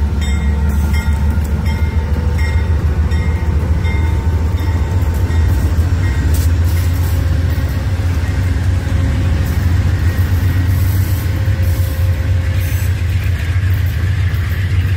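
Amtrak passenger train passing close by: the diesel locomotive and then the coaches rolling past, a loud steady low rumble. In the first few seconds a short high tone repeats about once a second.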